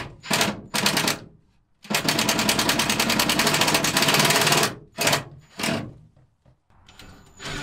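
Cordless impact driver driving screws up into the van's roof to hold wool insulation batting in place: three short bursts, then a long run of rapid impacts lasting about three seconds, then two more short bursts.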